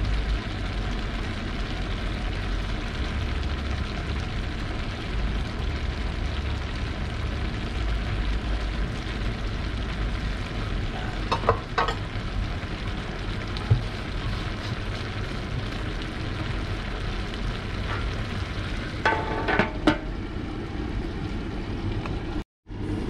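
A large wok of bopis stew sizzling and bubbling steadily on the stove, with a low hum underneath. A few short clinks come about halfway through and again near the end.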